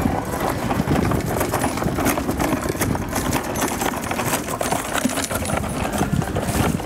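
Footsteps of people walking: a dense, irregular run of knocks over a steady low rumble.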